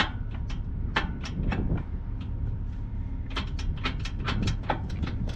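Harley-Davidson motorcycle's V-twin engine running steadily at idle, with sharp irregular clicks and ticks over it that come thickest in the last two seconds.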